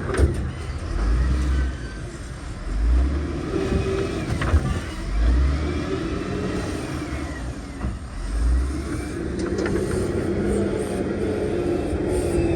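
Diesel engines of heavy earthmoving machines working under load, with deep surges every two to three seconds, faint metallic squeals and a few sharp knocks.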